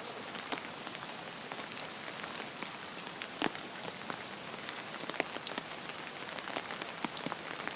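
Pouring rain: a steady hiss of rainfall, with many individual drops ticking sharply on an umbrella close overhead.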